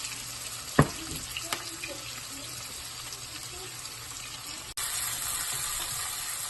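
Chopped onion, ginger, garlic and curry leaves sizzling steadily in hot oil in a pan as they sauté, with a sharp knock about a second in. Just before the end, after a brief break, the sizzle is louder.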